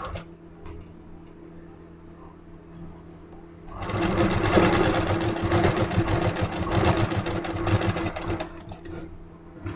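Electric motor-driven sewing machine stitching fabric strips: a fast, even run of needle strokes starts a little under four seconds in and stops about a second before the end. Before it, only a low steady hum and a few faint clicks of fabric being handled.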